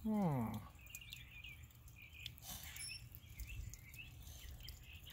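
A man's voice makes a short vocal sound falling in pitch right at the start, then small birds chirp repeatedly in the background over a low steady rumble.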